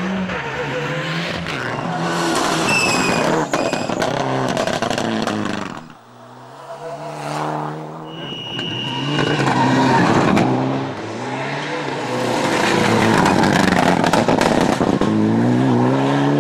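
Rally car engines revving hard, rising in pitch and dropping back through gear changes over several passes, with tyre and gravel noise as the cars slide through gravel corners.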